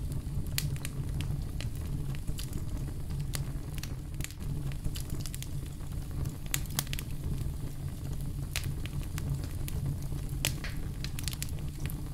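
Lime pieces being handled and added to a bowl of milk: small irregular crackles and clicks, a few a second, over a steady low hum.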